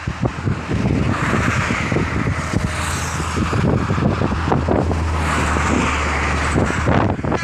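Motor vehicle running close by, its engine hum and tyre hiss swelling twice, with wind buffeting the microphone.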